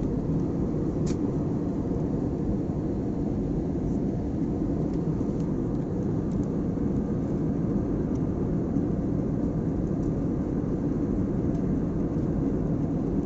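Steady cabin noise of an airliner in flight: an even, unchanging rumble of engines and airflow, heaviest in the low range.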